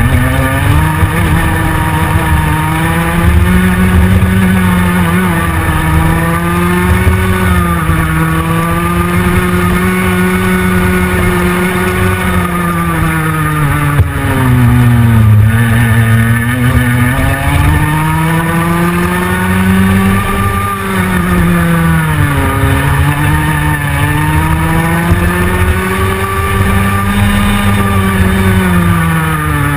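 Go-kart engine heard on board, its pitch climbing along the straights and falling off into the corners again and again, with the deepest drops about halfway through and near the end.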